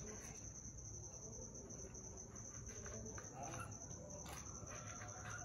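Quiet room with a faint, steady high-pitched trill and a few soft clicks of a plastic spoon scraping in a plastic bowl.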